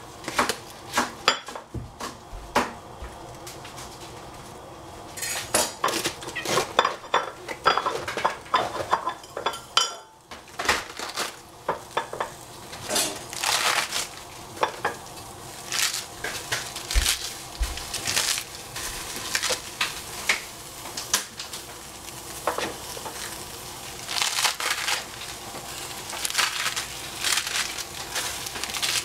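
Lettuce leaves being torn off the head by hand and dropped into a stainless steel pot: irregular crisp snaps and crackles with light rustling of leaves against the metal, pausing briefly partway through.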